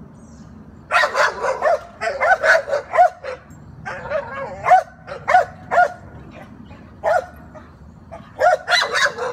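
Several dogs barking at a cat up on a fence: short, sharp barks in quick volleys with brief pauses between, starting about a second in.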